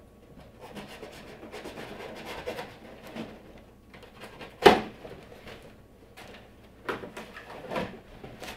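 Cardboard shipping box being cut open and handled: a knife slitting the packing tape, with cardboard rustling and scraping. A sharp knock about halfway through is the loudest sound, followed by a few lighter knocks near the end.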